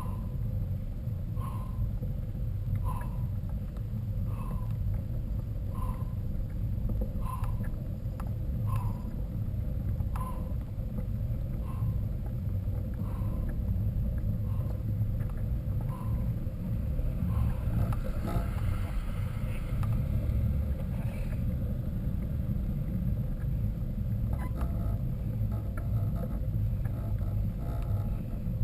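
Riding noise from a mountain bike ride: a steady low rumble, like wind buffeting the microphone, with a short squeak about once a second through the first half, in time with a pedalling rhythm.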